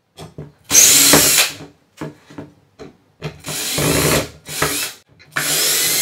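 Ridgid cordless drill/driver spinning a screwdriver bit on the small screws of a Mac Pro's processor board, in three short runs of a second or so each, with light clicks of the bit between runs.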